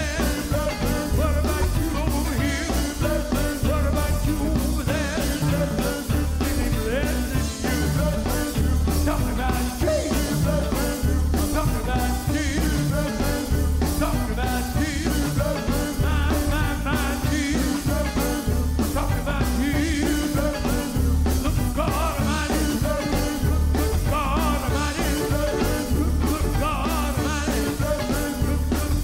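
Live gospel quartet singing: a lead vocalist with group harmonies over electric guitar and a steady beat.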